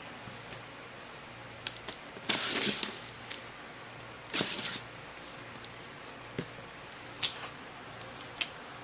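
Handling noises from unpacking: scattered light clicks and taps, with two short rustles, one about two and a half seconds in and another about four and a half seconds in, and a sharp click near the end.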